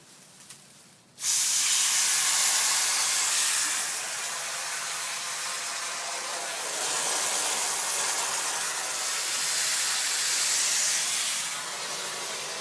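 Garden hose spraying water, starting suddenly about a second in and then running as a steady hiss that swells and eases slightly.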